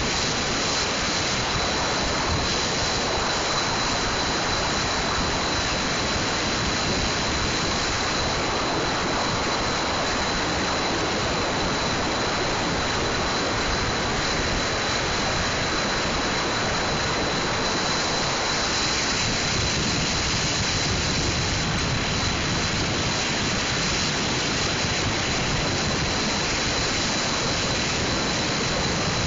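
Steady road noise from a car driving across a bridge: an even hiss of tyres and wind, with a thin steady high tone over it.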